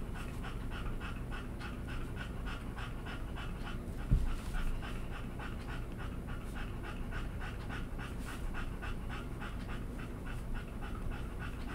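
A dog panting steadily, about four breaths a second, with a single dull thump about four seconds in.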